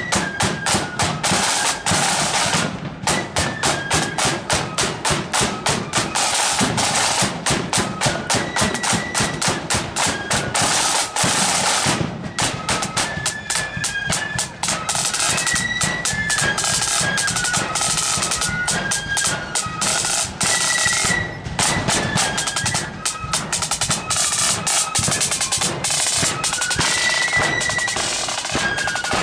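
Marching flute band playing a tune over snare and bass drums, with rapid, dense snare strokes throughout. The high flute melody stands out more clearly in the second half.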